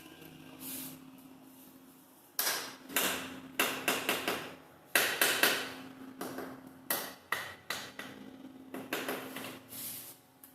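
Construction work: a run of loud, sharp knocks at an uneven pace begins about two seconds in and stops shortly before the end, with a steady low hum underneath.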